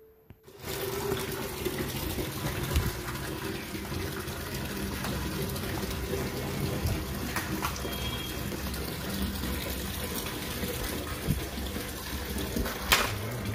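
Water running steadily as the split air conditioner's dust-clogged air filters are washed, with a short sharp knock near the end.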